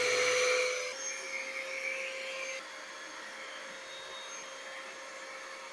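Built-in electric pump of an OhGeni twin air mattress running in deflate mode, a steady motor hum with rushing air as it draws the air out of the mattress. The sound drops in level about a second in and again a little later.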